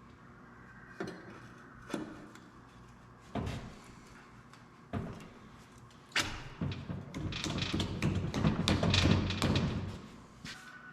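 Workshop handling noise: several separate knocks a second or so apart, then a few seconds of busy clattering and rattling, the loudest part, as parts and tools are handled during a tractor transfer case repair.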